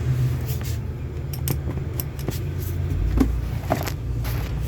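Irregular metallic clinks and taps of a socket and hand tools working on bolts, over a steady low rumble.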